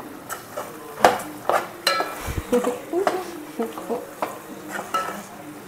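A steel spoon stirring thick chicken curry masala in a metal pot on a gas stove, with repeated scrapes and clinks against the pot, roughly two a second, as freshly added chilli powder is mixed in.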